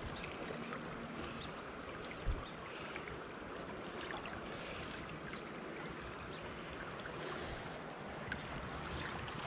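Steady rush of flowing creek water, with a single low thump about two seconds in.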